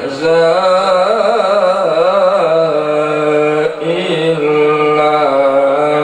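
A man reciting the Quran in the melodic tilawah style, amplified through a handheld microphone. An ornamented, wavering line in the first couple of seconds gives way to long held notes, with a brief break a little past halfway.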